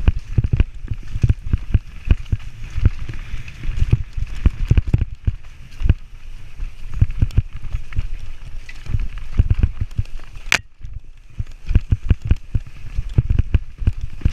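Mountain bike clattering and thudding over a rough trail on a fast descent, heard through a helmet-mounted camera: a dense, irregular run of knocks and jolts from the frame, chain and wheels. One sharp click about ten and a half seconds in.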